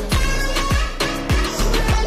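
Background pop/electronic dance music with a steady beat: a deep kick drum that drops in pitch lands about every 0.6 seconds under layered synths.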